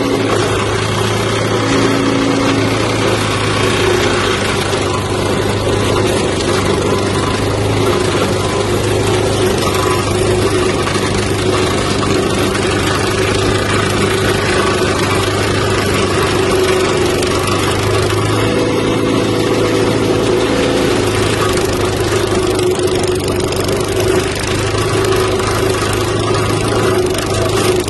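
Wood chipper's 196 cc single-cylinder gasoline engine running steadily at a constant speed, with a steady hum and little change in level.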